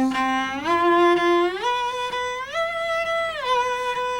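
Cello shifting exercise on one string: long bowed notes climbing in about four steps, each reached by an audible slide of the first finger up the string. The line slides back down near the end.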